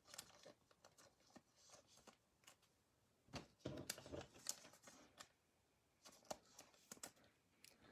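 Faint, scattered clicks and light rustles of trading cards being picked up and handled on a tabletop, busiest around three and a half to five seconds in.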